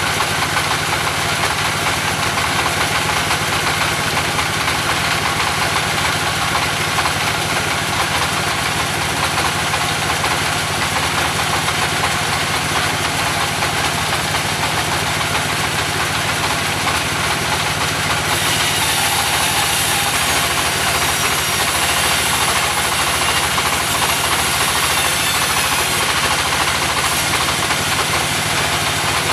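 Engine of a portable sawmill running steadily, with a knocking beat. A little past the middle a high hiss joins in for several seconds, then drops away.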